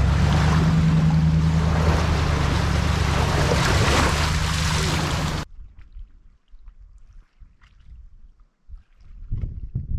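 Motorboat under way: a steady engine hum with wind and water rushing past, cutting off suddenly about halfway through. Then faint small sounds, with a soft bump near the end.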